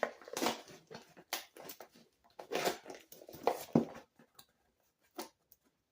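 Packaging being handled and torn open by hand: a run of rustling, crinkling and tearing strokes, which thin out after about four seconds to a few faint clicks.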